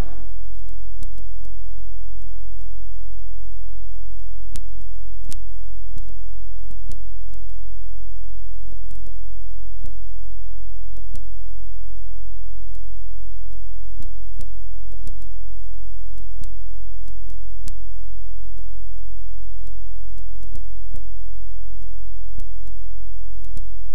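Loud, steady low electrical hum with faint scattered clicks over a blank stretch of tape: mains hum in the video transfer, with no programme sound.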